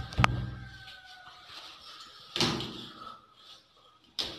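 Wooden door knocked against its frame while it is being repaired: two sharp loud knocks right at the start with a brief ringing after them, then two softer knocks later.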